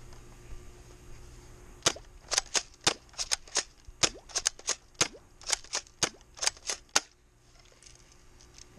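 Airsoft 870-style pump-action shotgun being fired and pumped in quick succession: about twenty sharp snaps and clacks over some five seconds, starting about two seconds in and stopping a second or two before the end.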